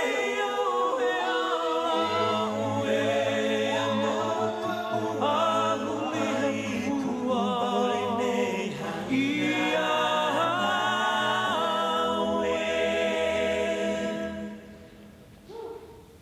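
A group of voices sings a Hawaiian song in close harmony over a low, steady drone that comes in about two seconds in. The singing fades out near the end.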